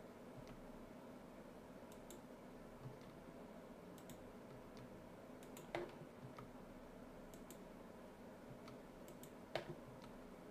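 Faint clicks of a computer keyboard and mouse as the E key and the left mouse button are pressed in turn, over a faint steady hum. Two louder clicks come about six seconds in and near the end.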